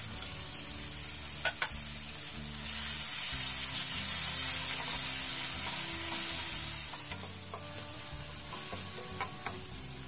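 Shrimp paste (bagoong alamang) sizzling in hot oil in a metal wok with garlic, onion and tomato, stirred with a slotted spatula that scrapes and now and then taps the pan. The sizzle swells a couple of seconds in and eases off after about seven seconds.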